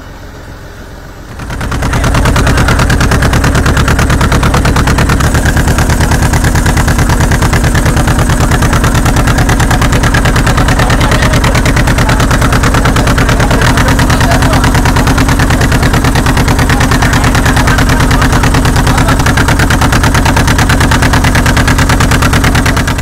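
Engine running loud and close, with a fast, even firing rhythm and a steady low note. It starts abruptly about a second and a half in, and its note shifts slightly about halfway through.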